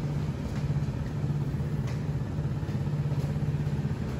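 Steady low machine hum over a faint background noise.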